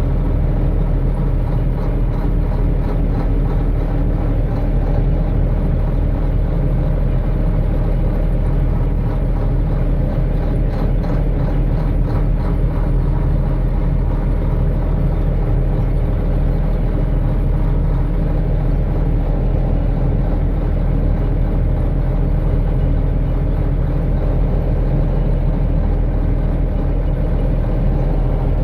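Tractor engine running at a steady speed, driving a corn picker.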